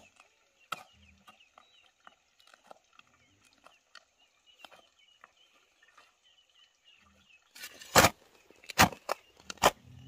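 Faint birdsong and light clicks, then, near the end, a run of sharp chopping strokes on wood, about one every 0.7 s.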